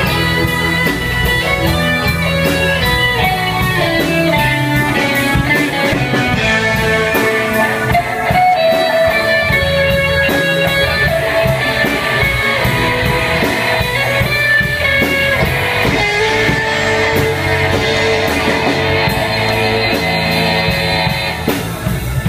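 Live band music: an electric guitar carries the melody over bass guitar and keyboard.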